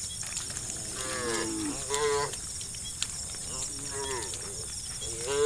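Cattle mooing: four short calls, each bending in pitch, the last and loudest near the end.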